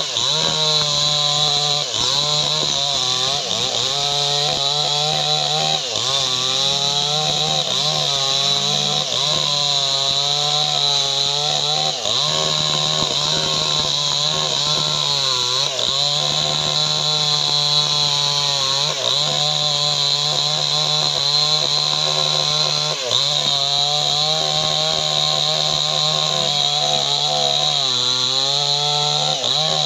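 STIHL MS 881 two-stroke chainsaw running at full throttle while cutting through a teak log. The engine note wavers and dips briefly every few seconds as the chain bites into the wood.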